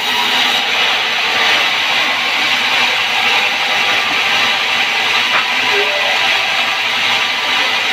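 Large sawmill band saw running steadily between cuts, its blade spinning free with no log in it: a loud, unchanging mechanical noise.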